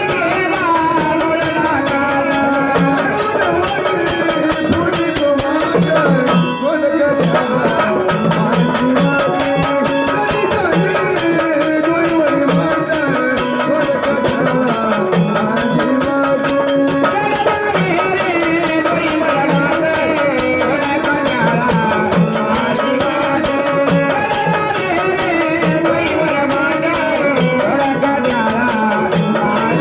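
Marathi gondhal folk music: a hand drum keeps a steady beat under a melody line that rises and falls.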